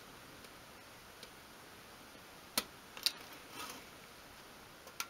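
A few isolated sharp clicks as a craft knife blade cuts through the small tabs holding parts in a thin etched brass sheet on a cutting mat.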